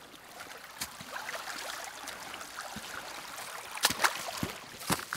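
A small woodland stream trickling and gurgling over rocks, with a few sharp clicks near the end.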